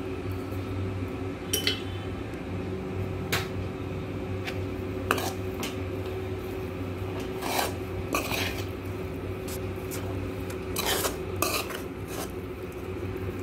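A steel ladle clinks and scrapes against a metal kadai several times at irregular moments while idiyappam is stirred into tomato masala, over a steady low hum.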